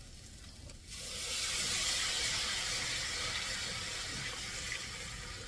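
Chicken broth poured from a can into a hot cast iron skillet of vegetables and flour, hissing and sizzling as it hits the pan. The hiss starts suddenly about a second in and slowly dies down.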